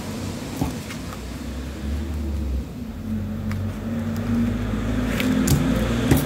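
A low motor rumble of several steady tones that shift in pitch and grow a little louder towards the end, with a few light clicks.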